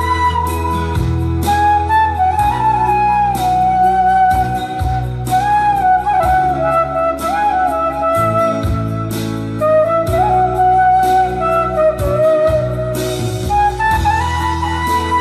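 Background music: a flute-like melody that bends and slides between notes over sustained low bass notes, with regular percussion strikes.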